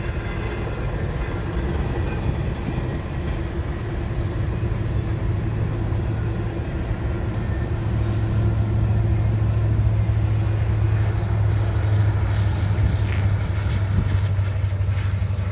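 A long freight train of coal cars rolls by with a steady rumble of wheels on rail. About halfway through, a low diesel drone grows louder as a pair of BNSF diesel locomotives comes past.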